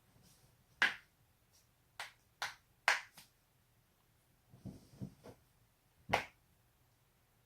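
Joints cracking: a series of sharp, separate pops, with a quick run of duller pops about five seconds in and one more sharp pop shortly after.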